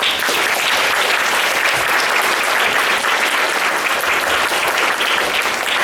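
Audience applauding, with steady clapping that breaks out suddenly and keeps up at an even level.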